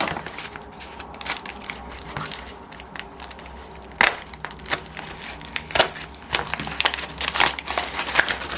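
Mailing envelope being handled and opened, crinkling and crackling irregularly, with two sharper snaps about four and six seconds in.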